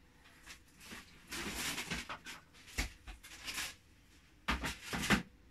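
Irregular rustling with a few sharp knocks and thumps, the loudest near the end, from things being handled and moved about in a kitchen.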